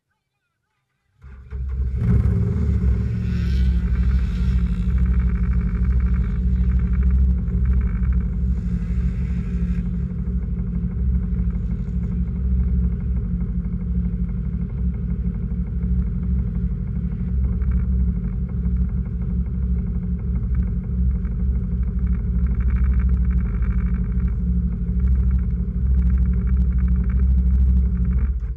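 A UTV engine running at a steady pitch, heard from inside the vehicle. It starts abruptly about a second in and cuts off abruptly at the very end.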